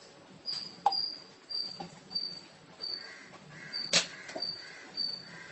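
A cricket chirping in short, even, high-pitched chirps, about three every two seconds, with a few sharp clicks, the loudest about four seconds in.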